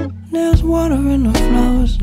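Background music: a song with a gliding sung melody over steady low notes. It dips briefly at the start and comes back in about half a second in.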